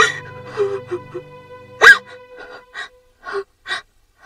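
A woman sobbing, with a sharp gasping sob about two seconds in and short catching breaths after it, over sad background music with held tones.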